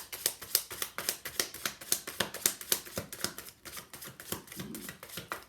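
A deck of tarot cards being shuffled by hand: a rapid run of crisp card clicks and slaps, several a second, thinning out near the end.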